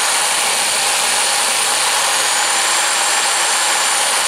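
Old Craftsman variable-speed drill running steadily at speed, loud, spinning a small brass model flyball governor through a length of fuel line so its balls swing out.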